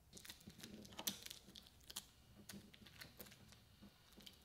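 Faint, irregular small clicks and taps of a plastic spudger prying and picking at parts inside an opened smartphone, about a dozen scattered clicks.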